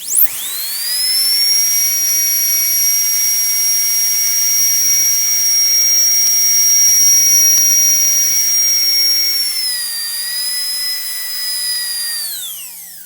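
Dentist's drill: a high-pitched whine that spins up quickly, holds steady, drops slightly in pitch about ten seconds in, then winds down with falling pitch near the end.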